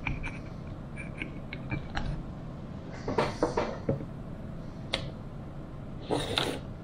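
Light clicks and scraping of a neodymium magnet rubbed over the magnets inside a small-engine flywheel, then a cluster of clattering knocks about three seconds in and another short clatter near the end as the magnet is taken off and things are handled on the table.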